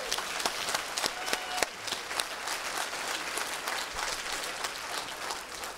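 Congregation applauding, many hands clapping at once.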